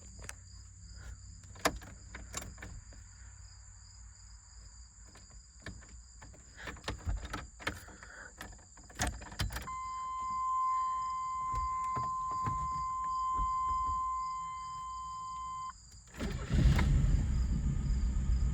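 Chevy S10 pickup engine cranking over and starting about 16 seconds in, then running at idle right after its misfire codes were cleared. Before it there are scattered clicks and a steady electronic beep lasting about six seconds. Crickets chirp throughout.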